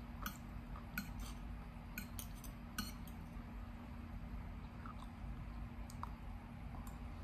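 Metal fork and spoon clinking and scraping against a plate while twirling rice noodles: a cluster of sharp clinks in the first three seconds, then fewer, fainter ones, over a steady low hum.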